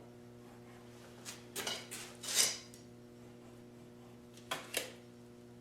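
Short scraping and clicking handling sounds of a ruler and pencil being moved and marked on a wooden board: a cluster of brief scrapes, the loudest about two and a half seconds in, then two quick clicks near the end.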